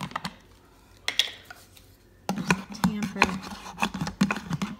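Pampered Chef Deluxe blender grinding roasted hazelnuts: quiet at first, then from a little over two seconds in the motor hums while the ground nuts rasp and tick against the jar in a dense, irregular run.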